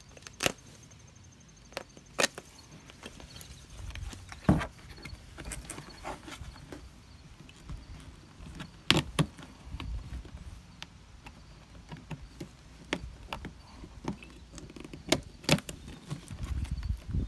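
Scattered sharp clicks and snaps at irregular intervals as a metal pick pries upholstery staples up out of the plastic frame of a car's center armrest lid.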